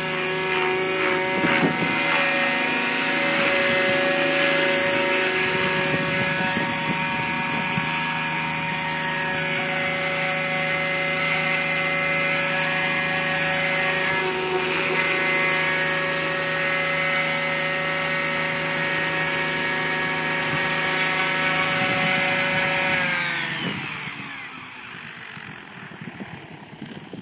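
RC helicopter with a 15-tooth pinion running at about 2100 rpm head speed, giving a steady high-pitched whine of motor and gears with rotor noise; the owner says it has a funny sound since the change. Near the end the whine falls in pitch and fades as the rotor spools down.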